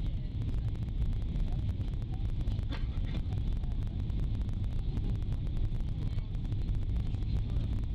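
Steady low rumble of an airliner's engines and rushing air heard inside the passenger cabin on approach, with a faint steady high whine above it.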